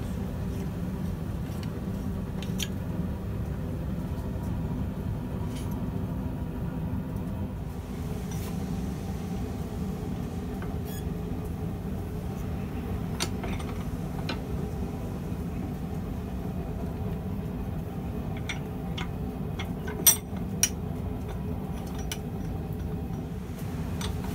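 Steady low mechanical hum with a few sharp clicks or taps scattered through it, the loudest two close together near the end.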